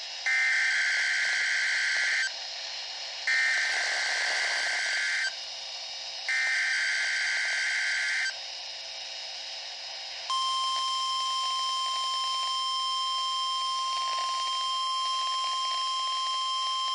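NOAA Weather Radio Emergency Alert System test signal from a weather radio receiver: three harsh two-second bursts of warbling SAME data tones, then, about ten seconds in, the steady warning alarm tone begins and holds. It is the required weekly test of the alert system.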